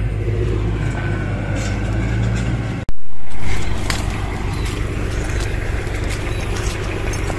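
Truck engine running steadily. About three seconds in there is an abrupt cut to a louder burst that settles back to a rougher, uneven running sound.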